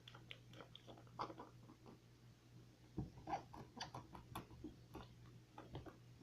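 Quiet, scattered small clicks and taps of a plastic hand soap bottle and container being handled, irregular throughout.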